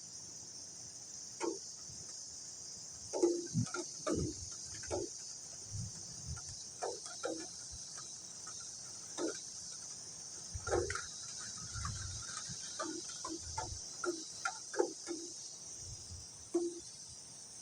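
Rain ambience: a steady high hiss with scattered, irregular taps of dripping water. A few brief low rumbles come in around the middle.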